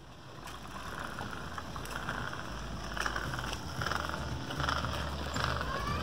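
Wind buffeting the microphone outdoors, a low rumble that grows steadily louder, with faint hissy outdoor noise above it.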